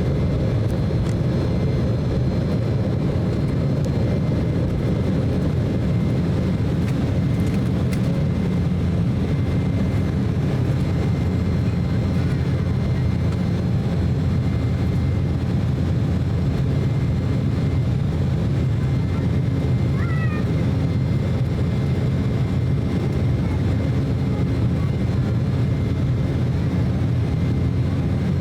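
Steady cabin noise inside an Embraer E190 airliner: the drone of its GE CF34 turbofan engines and rushing airflow, with faint steady high tones on top. A brief faint high-pitched squeak comes about twenty seconds in.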